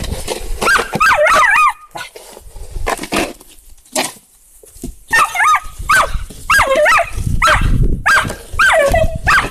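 Rough collie vocalizing excitedly in about four bursts of high, wavering whines and yelps, with a quiet gap in the middle. A plastic snow shovel scrapes through snow near the start and again shortly before the last burst.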